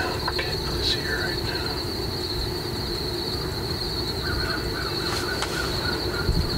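Insects trilling steadily in a high, unbroken tone, with a few faint bird calls about a second in and a short series of them at about four to five seconds.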